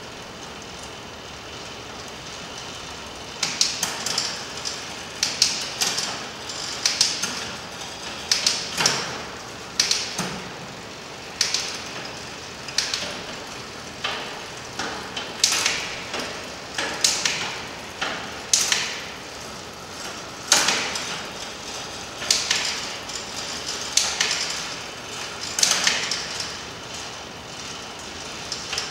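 Specialized Stumpjumper mountain bike drivetrain being tested for shifting: the chain runs over the spinning rear cassette while the rear derailleur shifts it from cog to cog. A sharp click of the chain changing gear comes roughly every second or two, starting a few seconds in.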